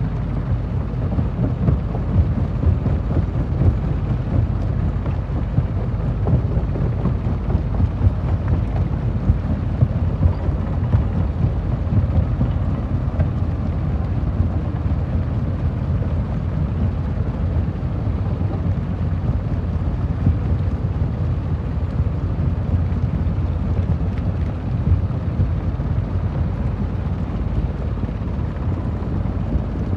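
Stone crusher machine running and crushing rock: a steady heavy low rumble with constant irregular knocks and crackles.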